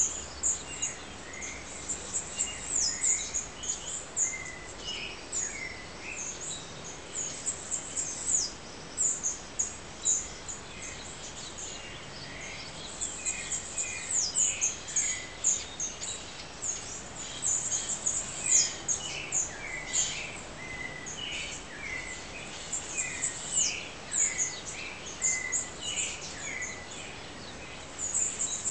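A dawn chorus of several songbirds: many short high chirps and quick falling whistles overlapping without a break, over a faint steady hiss.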